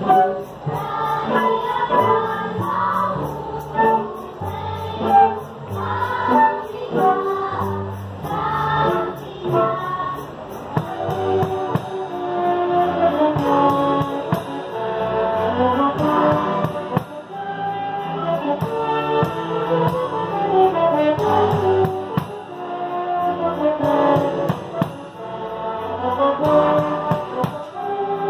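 Live choir and band performing Christmas cantata music, with melodic lines moving over held bass notes.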